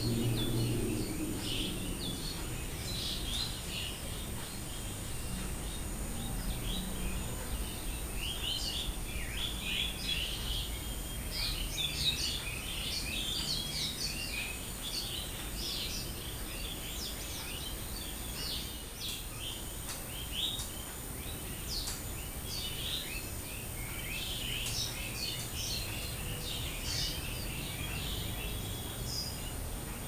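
Small birds chirping and twittering in the background, many short calls throughout, over a low steady rumble.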